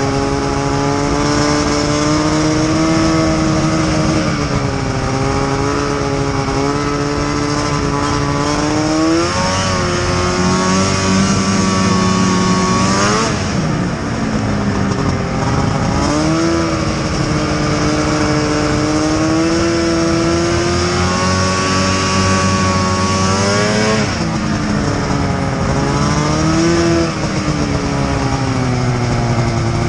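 Snowmobile engine running while riding, its pitch rising and falling as the throttle changes. It dips sharply and picks up again about halfway through and again later on, over a steady rushing hiss.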